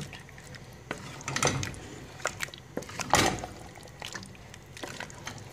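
Spoon stirring and turning pieces of meat in a cooking pot: irregular wet scrapes and clicks, with louder strokes about a second and a half and three seconds in.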